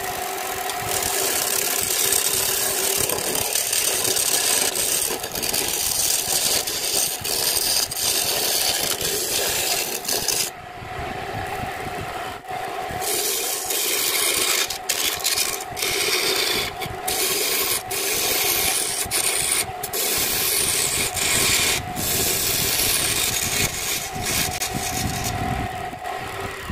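A homemade wood lathe runs steadily while a hand-held turning tool cuts into a spinning length of green bamboo, making a loud scraping hiss of shavings. The cutting stops for about two seconds near the middle, then comes and goes with short breaks while the motor hum carries on.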